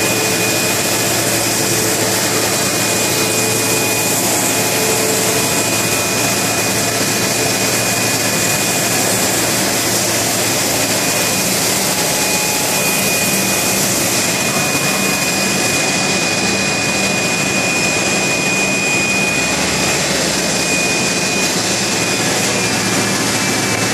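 Yuan Lung YL-15302-R+B CNC woodworking router running: a loud, steady rushing machine noise with a constant thin high whine over it.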